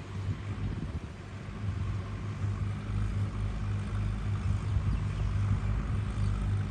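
An engine running with a steady low hum, growing louder about a second and a half in.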